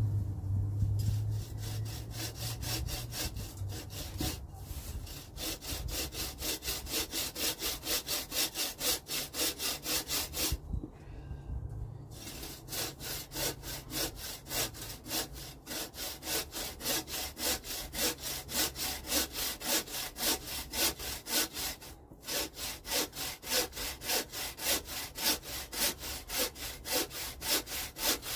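Hand saw cutting through a fallen tree branch in steady back-and-forth strokes, about two a second. It stops for about a second and a half near the middle, then carries on.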